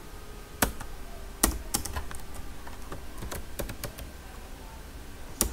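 Computer keyboard being typed on: about a dozen irregular key clicks. The loudest strikes come in the first second and a half and again near the end.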